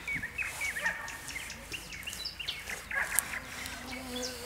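Knife cutting raw meat on a wooden board, with short knocks of the blade against the board, the loudest about three seconds in. Birds chirp with many short, quick notes.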